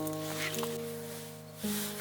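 Background music: sustained, held notes that change a few times, over a faint hiss.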